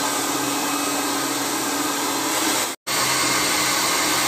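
Handheld hair dryer running steadily, a rush of air with a low hum under it. It cuts out for an instant near three seconds in and comes straight back.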